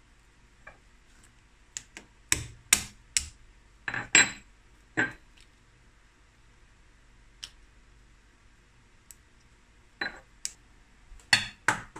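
Boiled crab shell cracking and snapping as a leg is broken and peeled apart by hand. There is a quick run of sharp clicks about two seconds in and another cluster near the end, with a few lone ticks between.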